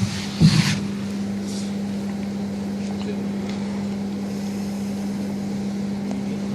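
Steady low hum with a light background hiss, held at an even level. A brief handling bump comes about half a second in as the camera is swung.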